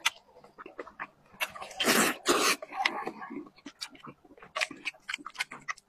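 Close-miked mouth sounds of a person eating: wet chewing and smacking clicks, with two or three short, loud, noisy bursts about two seconds in.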